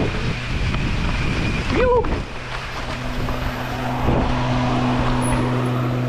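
Santa Cruz Megatower mountain bike rolling fast down a dirt trail, its tyres and frame rattling under wind noise on the helmet camera. About two seconds in there is a brief squeak, then the rattle eases and a steady low buzz carries on as the bike coasts out onto smooth pavement.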